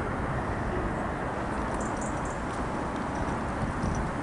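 Steady jet noise of an Airbus A320-232 with IAE V2500 turbofan engines coming in to land, an even rumble without distinct tones.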